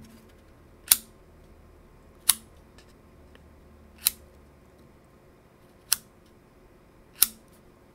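Five sharp, short clicks, about one every one and a half seconds, from the black plastic front cover of a Nikon L35AF2 compact camera being worked in the hands.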